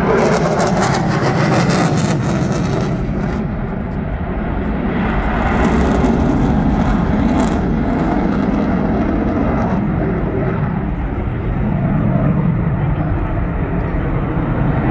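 Twin jet engines of an RAF Eurofighter Typhoon running loud during a display pass, with a crackle in the first few seconds. The noise dips slightly about four seconds in, then swells again.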